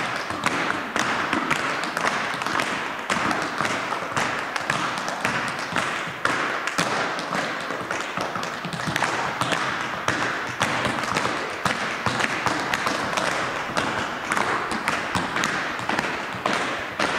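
Tap shoes striking a hardwood floor, several dancers tapping at once: a dense, unbroken clatter of sharp taps and heavier heel thuds.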